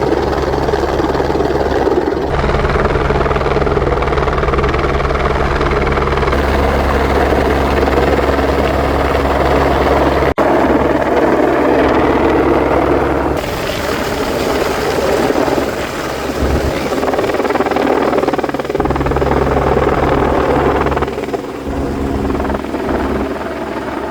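Rescue helicopter hovering close, its rotor beating steadily under heavy wind noise from the rotor wash buffeting the microphone. The sound shifts abruptly a few times and eases a little near the end.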